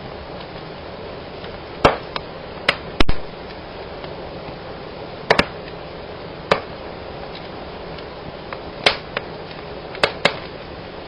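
Wood fire burning in a fireplace: a steady hiss broken by about ten sharp, irregular cracks and snaps, the loudest about three seconds in.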